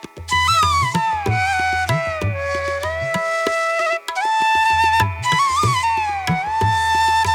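Background music: a flute melody with sliding, held notes over a tabla-like drum beat, in an Indian classical style.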